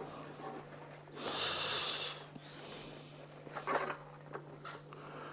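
A man's sharp breath, a hissing exhale lasting about a second, followed by a few small clicks and taps of plumbing fittings being handled.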